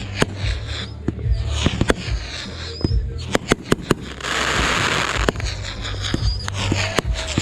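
Fireworks going off: a rapid run of sharp bangs and pops, with a dense burst of crackling about four seconds in.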